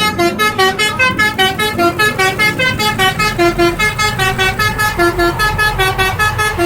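Basuri 'telolet' multi-tone bus horn playing a quick tune of short separate notes, about five a second, jumping between pitches.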